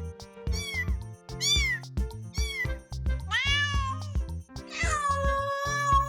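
Kittens meowing: four short meows about a second apart, then a longer meow and a long drawn-out one near the end, over background music with a steady beat.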